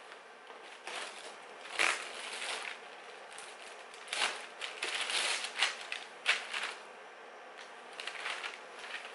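Clear plastic garment bag crinkling and rustling in irregular bursts as a folded black blazer is worked out of it. One sharp crackle with a soft thump comes about two seconds in, and a denser run of crinkling follows from about four to seven seconds.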